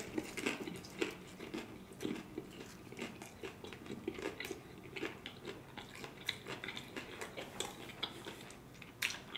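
Close-miked chewing of a mouthful of crunchy hard-shell taco: a quiet, steady run of small crunches and mouth clicks, with one sharper crunch just before the end.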